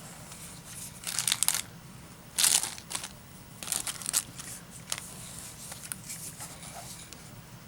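Packaging being handled during an unboxing: several short bursts of crinkling and rustling, the loudest about a second in and again about two and a half seconds in, then smaller ones. A faint steady low hum lies underneath.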